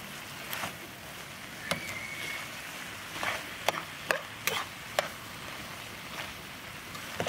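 Metal spatula scraping and knocking against a pan while stir-frying water spinach and cow eyeball pieces, over a steady sizzle. The sharp scrapes come irregularly, most of them between about three and five seconds in, with a brief high squeak near two seconds in.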